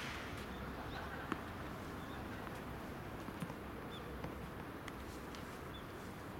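Outdoor court ambience: a steady low background hum with a few faint, short high chirps and a single knock about a second in.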